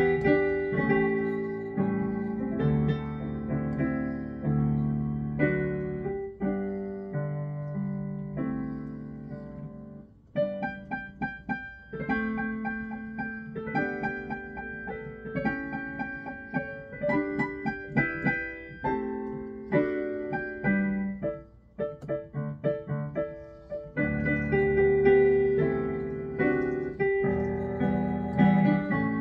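Yamaha Clavinova digital piano playing a Christmas medley: sustained chords over a bass line, then about a third of the way in a long stretch of short, detached chords with little bass, before full sustained playing returns near the end.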